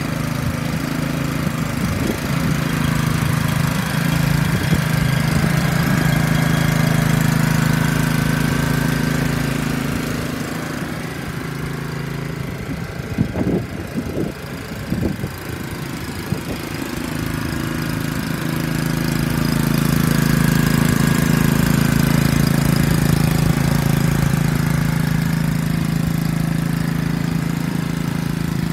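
Small Honda single-cylinder four-stroke engine on a portable water transfer pump, running at a steady speed. It drops in level partway through, with a few irregular bumps, then comes back louder.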